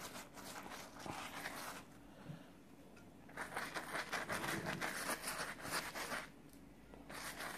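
Pastry brush swept rapidly back and forth over the crust of a baked naan, spreading melted butter: a dry scratchy brushing that comes in spells with short pauses between them.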